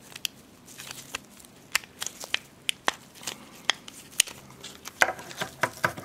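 Sharp plastic clicks, about one every half second, as the tabs of a 2009 Subaru Forester wiper switch housing are pried and popped apart, with a denser burst of plastic rattling and handling near the end.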